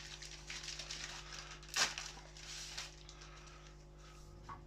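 Hands handling chainsaw parts while fitting a new guide bar: irregular rustling and clicks, with one louder knock about two seconds in, then quieter near the end.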